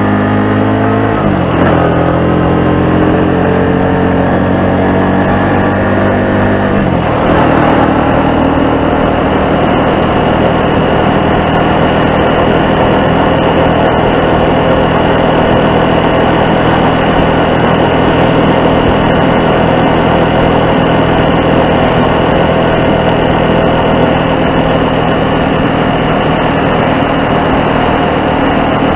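Keeway Superlight 125's single-cylinder four-stroke engine running while the motorcycle rides along. Its note drops sharply about a second in and again about seven seconds in, and from then on a steady rush of wind and road noise lies over the engine.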